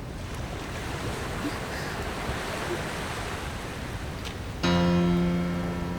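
Sea waves washing on the shore as a steady hiss; about three-quarters of the way in, background music comes in with a held note.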